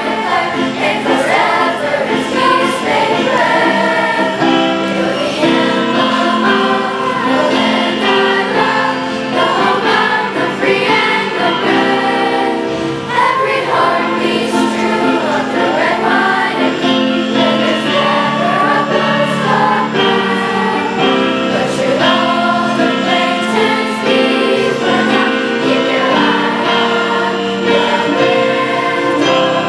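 A choir singing a song, loud and steady throughout.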